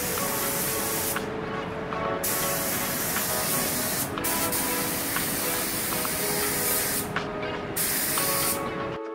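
Gravity-feed compressed-air paint spray gun hissing as it sprays paint, the hiss stopping and restarting three times: for about a second near the start, briefly about four seconds in, and again around seven seconds in.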